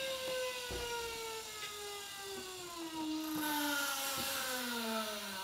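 Car lift lowering: a steady whine that falls slowly in pitch throughout, with a few sharp clicks and a hiss that swells about three seconds in.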